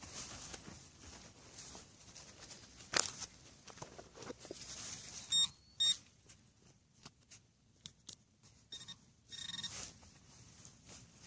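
Soil being dug and scraped, with a sharp knock about three seconds in. Then a metal detector gives short high beeps, once around the middle and again near the end, signalling metal in the hole.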